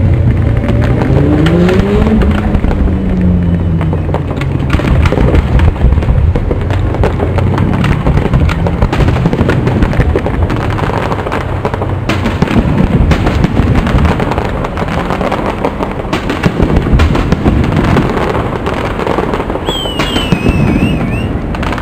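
Fireworks display: dense, continuous crackling and banging of bursting shells, with a high wavering whistle near the end.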